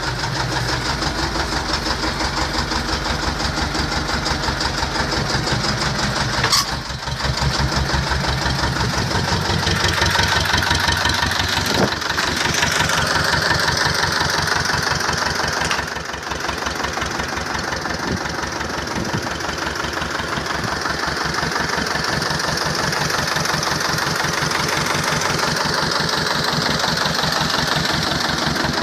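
T-25 tractor's two-cylinder air-cooled diesel running steadily with a rapid, even chugging. Its sound changes about nine seconds in, and a few sharp clicks sound over it.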